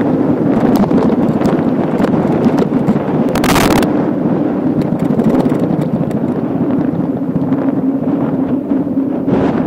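Steady wind rushing over an action camera's microphone while cycling, mixed with the tyres rolling on asphalt and small clicks and rattles. A short, louder rush comes about three and a half seconds in.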